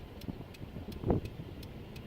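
Storm wind buffeting a vehicle and the microphone as a low, uneven rumble, with a louder thump about a second in. A faint, fast, regular ticking runs underneath, about three ticks a second.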